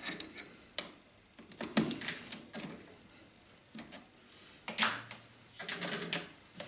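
Scattered light metallic clicks and knocks as a bent piece of scrap metal rod is fitted into a lathe's three-jaw chuck and the chuck is handled. The loudest knock comes nearly five seconds in, followed by a short run of smaller clicks.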